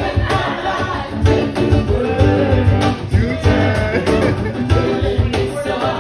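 Live acoustic duo music: a voice singing over strummed guitar, with a cajón's low hits keeping a steady beat.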